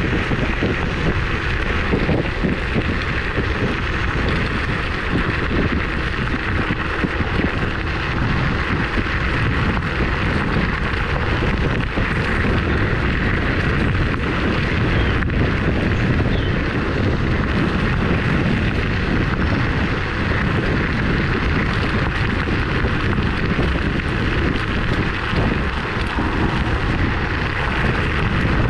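Steady wind rush on the microphone of a moving Kaabo Mantis electric scooter, with the rumble of its tyres rolling over a rough dirt-and-gravel trail.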